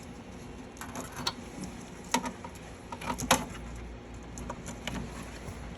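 Wire connectors being pulled off the header pins of a pinball machine's driver board: a few scattered sharp clicks, the loudest a little over two and three seconds in.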